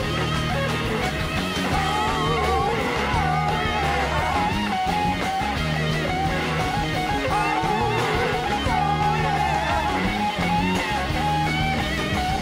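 Live blues-rock band playing an instrumental passage: a Gibson SG electric guitar leads with wavering, bending notes over bass guitar and drums.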